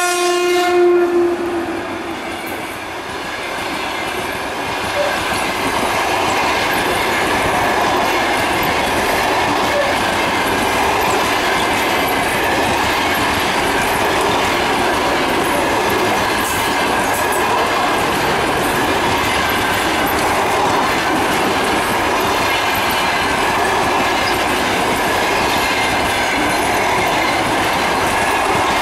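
An EP1M electric locomotive's horn cuts off about a second in as the locomotive passes close by. Then its long passenger train's coaches roll past steadily on the rails.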